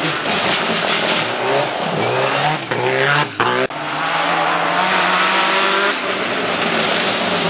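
Subaru Impreza rally cars driven hard on a gravel stage: engines revving up and dropping back through gear changes over the hiss of tyres on loose gravel. About halfway through the sound breaks off sharply and picks up again with another car.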